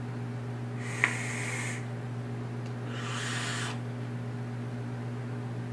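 Two breathy hisses, about two seconds apart, as e-cigarette vapour is blown out in big clouds, with a sharp click during the first. A steady electrical hum runs underneath.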